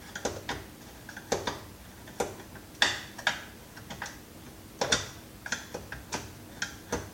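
Irregular sharp clicks and taps of a screwdriver against screws and the plastic housing of a Dirt Devil upright vacuum cleaner as it is taken apart.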